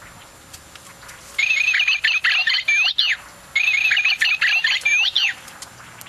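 Toy bird cage playing recorded birdsong: a chirping, warbling phrase about two seconds long starts about a second and a half in and plays twice in a row, the same each time.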